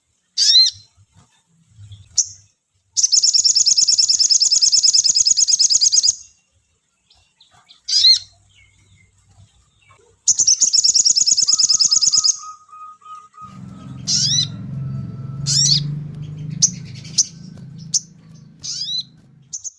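Sogon bird song: sharp whistled chirps and two long, rapid high trills, the first about three seconds long and the second about two. A low rumble comes in about two thirds of the way through, under more whistled chirps.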